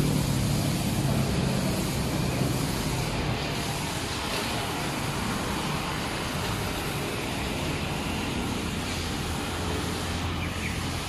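Steady motor-vehicle noise: an even rush of engines and traffic with no distinct events.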